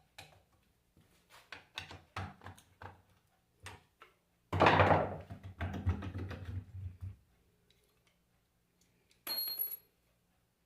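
Metal alternator parts and hand tools being handled during disassembly: scattered clicks and knocks, then a louder stretch of rattling and scraping lasting a couple of seconds about halfway through, and a brief high-pitched burst near the end.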